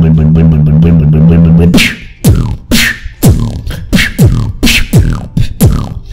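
Beatboxer's vocal robot voice: a deep, steady buzzing drone with a fast flutter, made with the cheeks and held-in air to thicken it. About two seconds in it switches to a run of deep mouth kicks that drop sharply in pitch, about two a second, each with a sharp snare-like crack.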